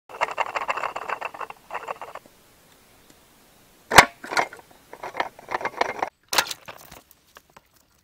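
Rattling and clicking from a homemade soda-can and stick bird trap, with one sharp snap about four seconds in and scattered knocks after it.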